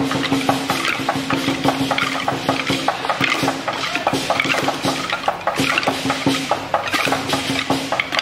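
Engkor (Yingge) dancers' short wooden sticks clacking in a quick, even rhythm of several strikes a second, with a steady pitched tone sounding on and off behind them.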